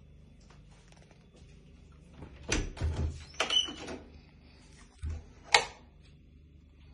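Wooden interior door being unlatched and opened: a few knocks and rattles from the handle and latch, a short squeak, then a dull thump and a sharp click about two seconds later.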